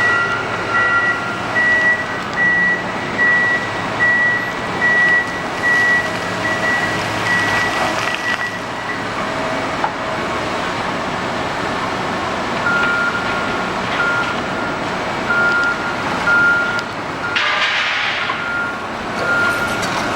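Heavy construction machines running, with a reversing alarm beeping about once a second over the engine noise. Partway through, a lower-pitched reversing alarm takes over, and a short burst of hiss-like noise sounds near the end.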